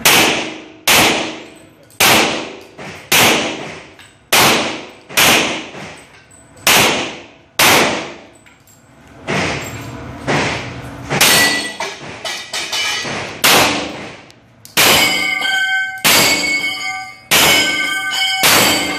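Handgun shots fired singly, about one a second, each echoing sharply off the walls of an indoor range. In the last few seconds the shots are followed by the ringing clang of steel plates on a Texas star target being hit.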